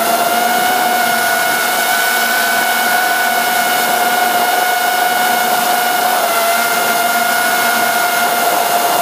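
FPV quadcopter's electric motors and propellers whining steadily at a nearly constant pitch, heard up close from the drone's own camera, with a slight drop in pitch about six seconds in.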